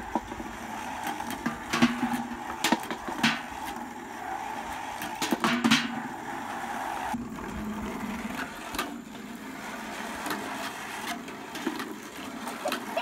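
Golf balls rolling down rain gutters in a steady rumble, with sharp clacks scattered through as balls knock against each other and drop out onto the ground and metal pails.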